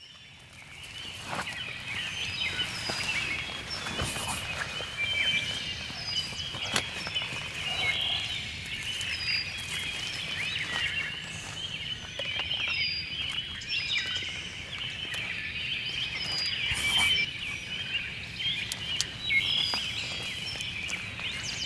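A dawn chorus of birds chirping and singing steadily, with scattered knocks and rustles from a pop-up hunting blind and tripod being set up.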